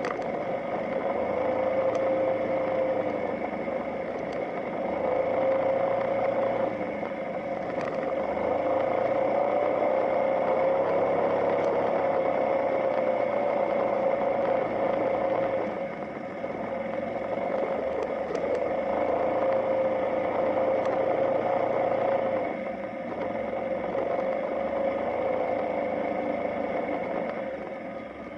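Motorcycle engine running steadily while riding, its note rising and falling gently with the throttle. The level drops briefly a little past halfway and again about three-quarters through.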